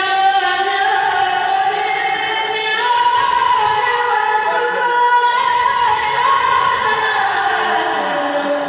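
Unaccompanied religious chanting by a kourel: one high voice holds long notes that slide slowly in pitch, with no instruments.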